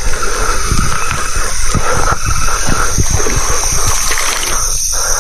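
A hooked catfish splashing and thrashing irregularly at the water's surface as it is reeled in and landed. The splashing eases off near the end.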